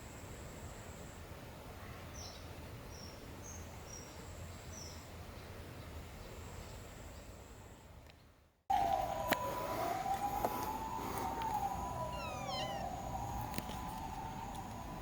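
Quiet outdoor ambience with a few short high bird chirps. After a sudden break about halfway, a siren wails, rising and falling in pitch every second or so, with a few bird chirps over it.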